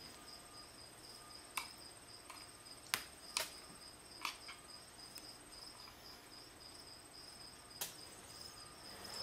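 A few faint sharp clicks and taps as a screwdriver and needle-nose pliers pick the old ring gaskets off a plastic oil filter housing. A steady high-pitched pulsing tone runs beneath them.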